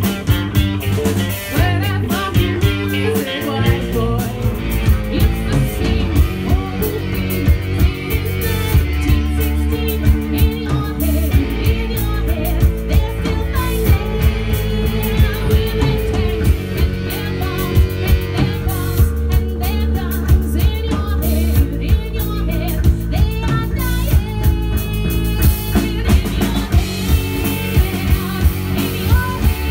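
Live pop-rock band playing: a woman singing over electric guitar, bass guitar and a drum kit keeping a steady beat.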